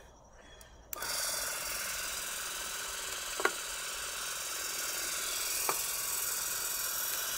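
Electric water-methanol injection pump switched straight on from a battery about a second in, then running steadily as it pushes water through a 500cc atomising nozzle, with two brief clicks a couple of seconds apart.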